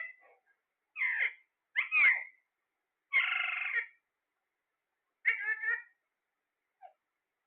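A parrot calling: four separate calls about a second apart, the third the longest, plus a faint short one near the end.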